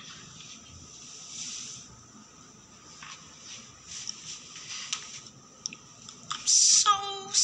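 Mostly a low, quiet stretch with a few faint soft clicks. Near the end comes a sharp hiss, then a voice that sounds sung, leading into music.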